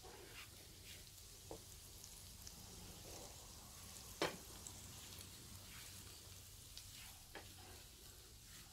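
Diced onion, carrot and garlic frying faintly in butter in a nonstick frying pan, with a wooden spatula stirring and now and then scraping the pan; the loudest scrape comes about four seconds in.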